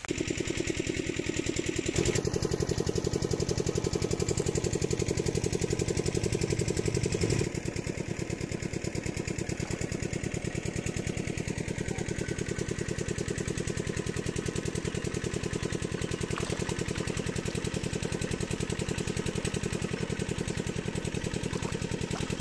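A small engine running steadily with a fast, even beat. It gets somewhat quieter about seven seconds in.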